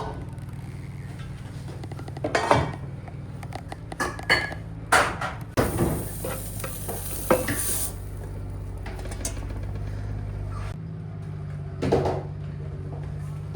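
Cooking sounds: pots, dishes and utensils clattering and being stirred several times, with a spell of hissing, like food sizzling, about six to eight seconds in. A steady low hum runs underneath.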